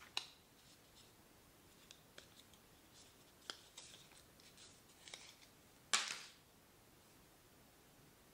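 A coiled USB charging cable and its paper band handled by hand: small clicks and rustles of plastic and paper, with one louder brief swish about six seconds in as the paper band slides off the coil.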